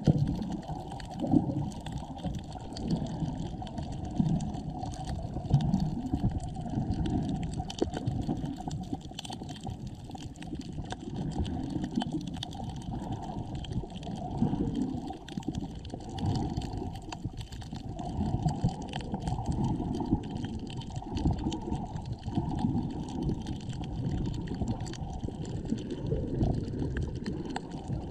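Water heard from an underwater camera: a low, uneven sloshing and gurgling that swells every second or so.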